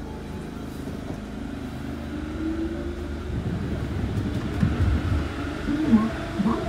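Osaka Monorail 1000 series car with field chopper control, heard running on the guideway: a steady low rumble that grows louder, with a short whine rising in pitch about two seconds in.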